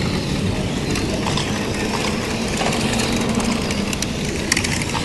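Electric 1/10-scale radio-controlled race cars running on the track: a steady hiss of motors and tyres, with a faint whine from a car passing about two seconds in.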